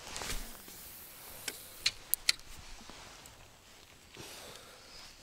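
Handling noise of fishing gear: a soft swish, then four sharp clicks in quick succession about a second and a half in, over faint hiss.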